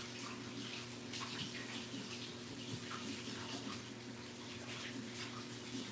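Kitchen tap running into a sink during dishwashing, with irregular splashes, over a steady low hum.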